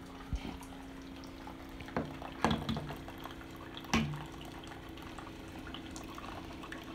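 A nearly empty plastic squeeze bottle of honey squeezed over a cup of tea: about four short wet squirts and sputters as the last of the honey is forced out. A low steady hum runs underneath.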